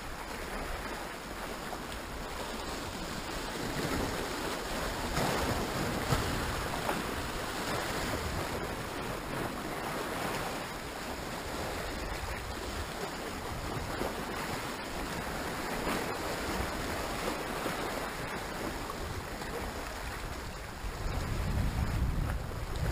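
Sea waves washing over a rocky shoreline, a steady surf hiss that swells and eases, with wind on the microphone. The wind buffets the microphone harder near the end.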